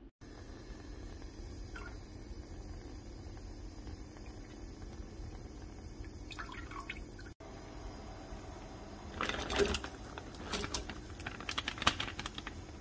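Sauce poured from a pouch into a pot, then a plastic bag crinkling as chopped green onions and radish are tipped out into the liquid with small splashes; the crinkling and splashing are loudest in the last few seconds.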